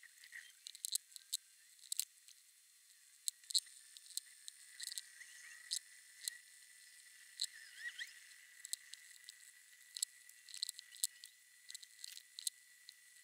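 Pencil scratching on paper in short, irregular strokes and taps, over a faint steady high tone.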